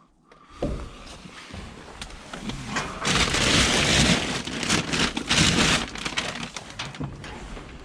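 Rubbish in a bin being rummaged through: a rustling, crackling noise with small knocks, loudest from about three to six seconds in.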